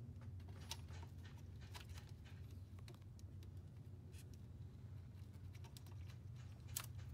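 Faint scattered clicks and light taps of pliers working at a plastic zip tie among engine-bay parts, with one sharper click near the end, over a low steady hum.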